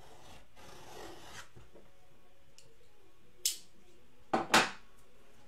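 Sports-card packaging being cut open. There is a soft rubbing of wrappers and cardboard about a second in, then three short, sharp cuts near the end, the last two close together.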